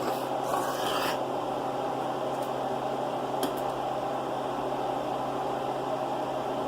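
Steady hum of a running household appliance or fan, with a brief rustling swell in the first second and a couple of faint clicks around the middle.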